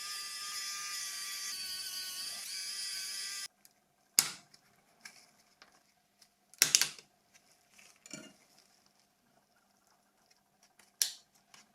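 A small high-pitched motor whines steadily for about three and a half seconds, then cuts off suddenly. After it come a few sharp clicks and snaps of small plastic phone parts being handled and pried apart.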